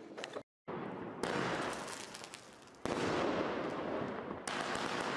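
Several consumer fireworks cakes fused together in a chain, firing: about a second in, a dense, continuous run of rapid shots and crackling begins. It gets clearly louder about three seconds in.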